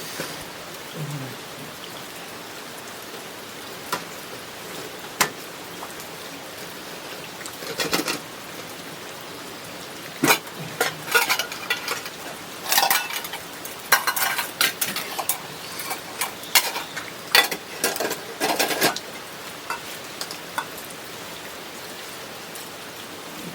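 Ladle and spoons clinking and scraping against a pot and metal Sierra cups as kimchi hotpot is dished out. It comes as scattered sharp clinks, busiest in the middle, over a steady hiss of rain.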